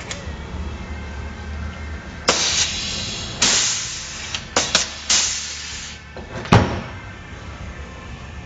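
Pneumatic rivet gun setting an Orlock structural blind rivet: several short bursts of air hiss as the tool cycles, then a sharp snap about six and a half seconds in as the rivet's pin breaks off.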